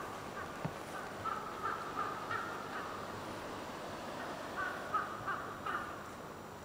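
A crow cawing in two series of about four harsh calls, over a steady hiss from a burning smoke grenade.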